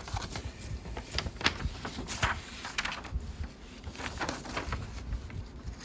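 Paper rustling and crinkling as a model kit's instruction sheet is handled and its pages turned, in a series of short crackles.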